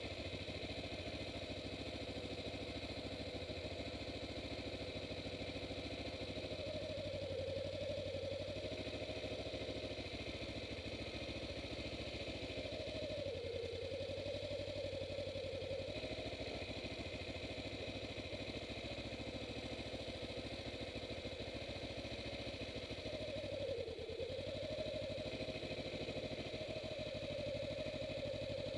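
Kawasaki Ninja 250R's parallel-twin engine running steadily while riding. Its revs dip briefly and recover three times: about a quarter of the way in, about halfway, and near the end.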